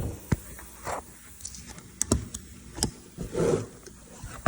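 Work noises: a scattered series of short knocks and clicks, with a brief softer rustle about three and a half seconds in.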